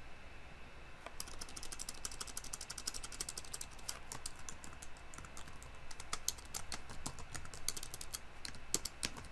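Typing on a computer keyboard: a fast run of keystrokes starting about a second in, then slower, irregular key presses.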